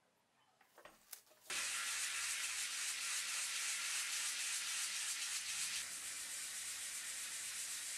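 A small apricot-wood piece rubbed back and forth by hand on a sheet of sandpaper laid flat, a steady dry rasping hiss that starts about a second and a half in, after a couple of light taps.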